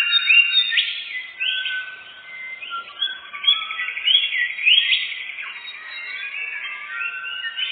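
Songbird calls: a continuous high trill with short rising whistled chirps repeated about every half second.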